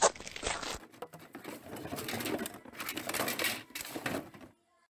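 Crackling and rustling of dry leaf litter and plastic: footsteps over dry leaves and plastic containers handled in a bin of bottles. It cuts off suddenly near the end.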